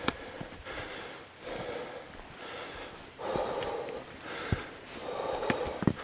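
A hiker's heavy breathing close to the microphone, a breath in or out about every second, with footsteps scuffing and clicking on a dirt trail.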